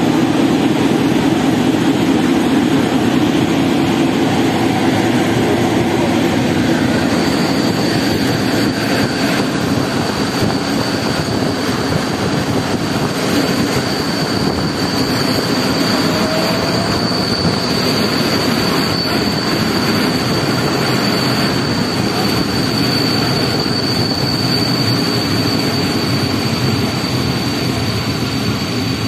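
TLK passenger train running along the track with a steady rolling rumble. About seven seconds in, a high, steady wheel squeal joins and keeps on.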